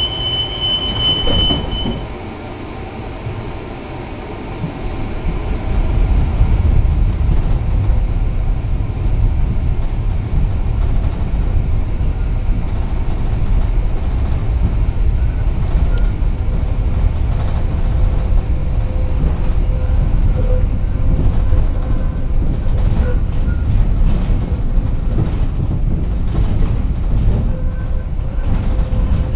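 Moderus Beta MF15 AC low-floor tram on the move, heard from on board: a steady low rumble of wheels on rail that grows louder from about five seconds in as the tram gets going. A faint wheel squeal comes and goes in the second half, and a high steady tone stops about a second in.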